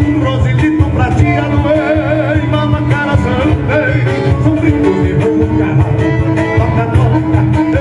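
Live gaúcho folk music played on acoustic guitars and a piano accordion.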